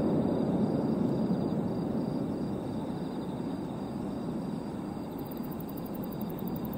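The low rumble of a distant fireworks burst dying away slowly, a long rolling echo that fades without any new bang.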